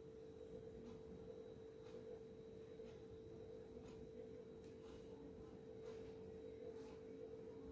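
Near silence: a steady faint hum, with a few faint soft touches and rustles as hands stretch and roll a strip of pleated dough on a stone counter.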